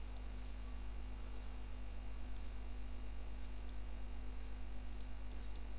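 Steady electrical mains hum in the recording, with a low buzz and a faint hiss, and a few faint clicks near the middle and end.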